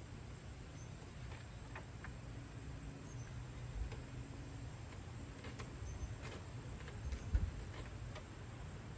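Faint scattered clicks and taps of screws being driven back into a plastic grille cover, with a single louder thump about seven seconds in, over a steady low rumble.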